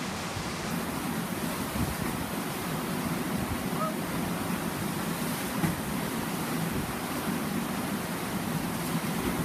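Steady rushing of churning white water in a whitewater wave, an even roar of noise with no pauses.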